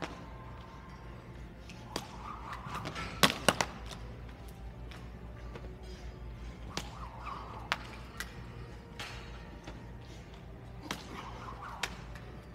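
Thin cable jump rope smacking a hardwood gym floor in sharp, irregular slaps, with the loudest cluster of three quick smacks about three seconds in.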